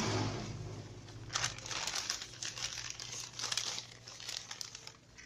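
Newspaper crinkling and rustling in irregular bursts as hands roll it around a fig air-layer seedling.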